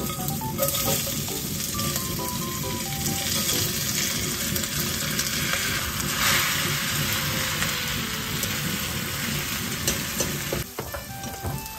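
Shredded-cabbage pancake batter sizzling in a hot oiled frying pan as it is tipped in and pushed around with chopsticks; the sizzle eases off a little just before the end.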